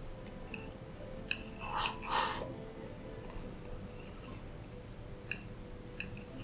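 Quiet background music under eating sounds: chopsticks clicking against a ceramic rice bowl as rice and beef are shoveled in and chewed, with a sharp click and then two louder scraping bursts about two seconds in.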